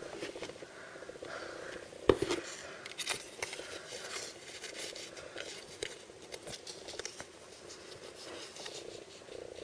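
Blind-bag packaging being handled and opened: irregular crinkles and clicks, with one sharp snap about two seconds in, over a low steady hum.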